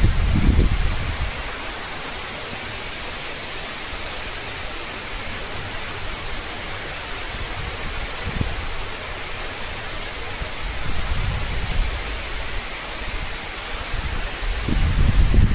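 Heavy rain falling, a dense steady hiss, with low rumbling surges about half a second in and again near the end.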